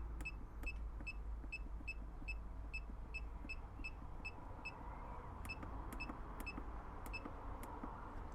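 Evakool DC40 fridge's control panel beeping with each press of its temperature button, short high beeps about three a second as the setting is stepped, with a short break partway through. A steady low hum runs underneath.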